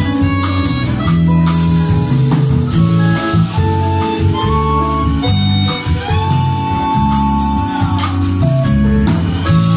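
Live jazz band: harmonicas play a sustained melody, with some notes sliding in pitch, over electric bass and electric guitar.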